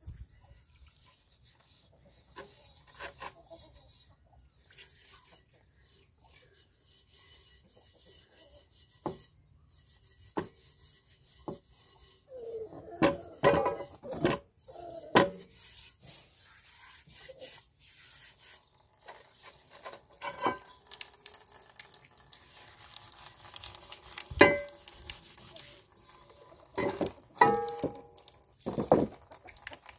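Steel-wool pad scrubbing rust off the inside of old iron pots, in irregular scraping strokes. The pots knock and ring now and then as they are handled, louder in the middle and near the end.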